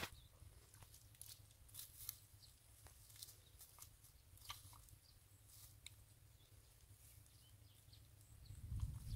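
Faint, scattered squelches and crackles from hands and bare feet working in wet paddy mud among dry rice straw. A louder low rumble comes near the end.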